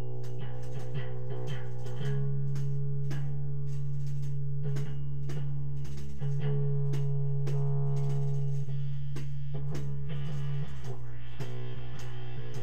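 Instrumental music from a live jam: held chords over a sustained low note that shifts every few seconds, with a steady beat of about two strokes a second.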